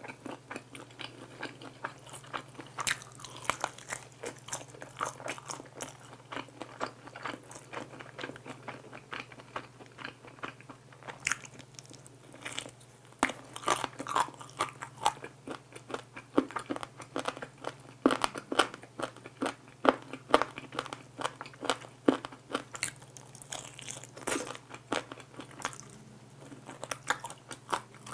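Close-miked chewing and biting of crispy sauce-glazed fried chicken wings: irregular crunches and crackles, busier and louder in the second half, over a steady low hum.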